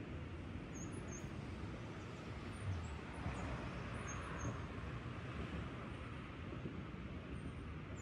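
Steady low rumble of distant road traffic, with small birds giving several short, thin, high chirps spread through it.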